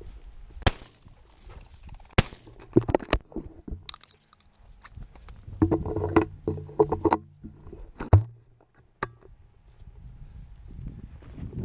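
Footsteps through dry bunchgrass and rock, with irregular knocks and rustles from the handled shotgun and its barrel-mounted camera; a denser patch of rustling in the middle.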